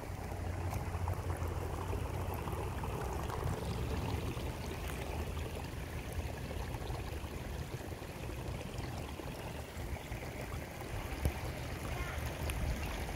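Steady rush of flowing water, with a low rumble of wind on the microphone.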